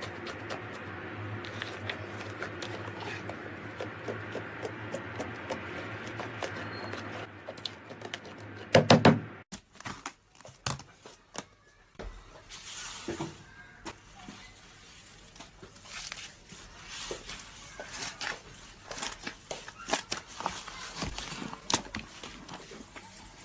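Slime being squeezed and poked by hand, making many small clicks and squelches. A loud burst comes about 9 seconds in, and after it the clicks and pops are sparser.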